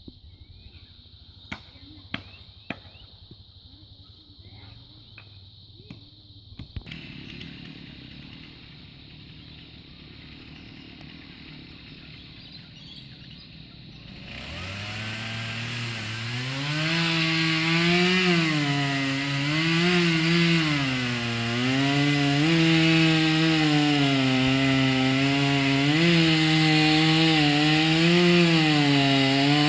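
A few sharp clicks and knocks, then about halfway in a two-stroke chainsaw starts up and runs loud. Its pitch rises and dips every second or two as it works into the wood of a tree being felled.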